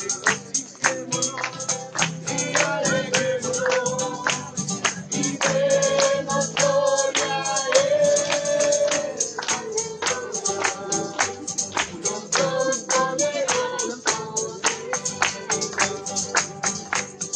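A group singing a Christian worship song, accompanied by a tambourine jingling in a quick, steady beat.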